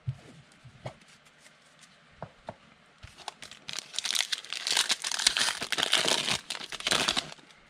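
A foil trading-card pack being torn open and its wrapper crinkling as the cards are slid out, starting about halfway through. Before that come a few light clicks.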